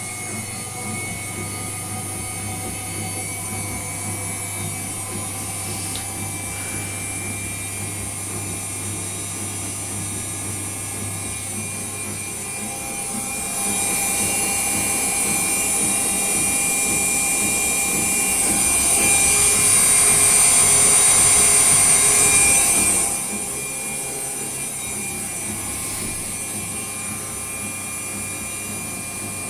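Hotpoint Ariston ARSL100 washing machine running with a steady hum and a rubbing, whirring mechanical noise. About halfway through, a louder hiss joins in for roughly ten seconds, then cuts off.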